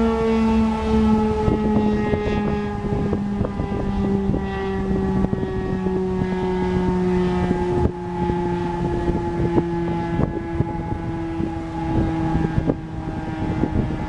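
Federal Signal STH-10A three-phase rotating warning siren sounding with its tone slowly falling in pitch, the siren winding down, while wind gusts buffet the microphone with frequent rough knocks.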